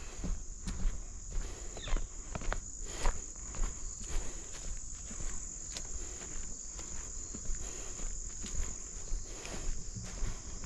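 Irregular footsteps of someone walking through marsh growth, with a steady high-pitched insect chorus of late summer behind them.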